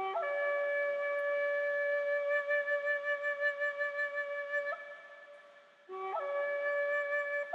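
Background music: a flute-like wind instrument playing slow, long held notes, each phrase starting low and sliding up into the held note. The first note fades out about five seconds in, and a new one enters about a second later.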